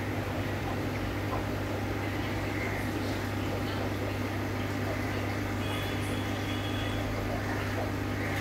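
Steady low hum of small electrical machinery running without change, with a constant deep drone underneath.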